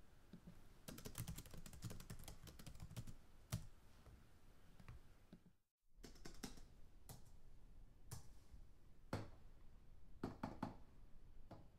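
Computer keyboard typing: a quick run of keystrokes, a brief silent gap a little under six seconds in, then slower, scattered keystrokes.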